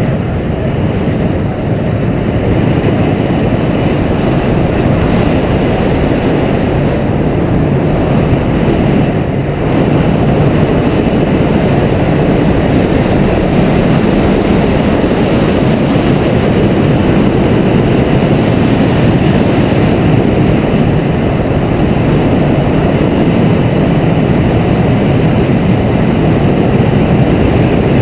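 Loud, steady wind rushing over the microphone of a camera mounted on a hang glider's wing in flight.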